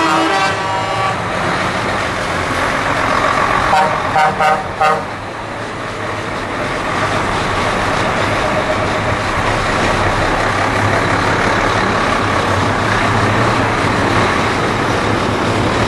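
Heavy trucks driving slowly past in a line, their diesel engines giving a steady rumble. A truck air horn sounds at the start, ending about a second in, and a few short horn toots follow about four seconds in.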